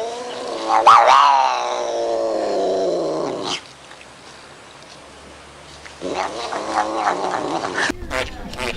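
An animal's long, drawn-out yowl that peaks early and falls slowly in pitch, followed a few seconds later by a shorter, choppier call.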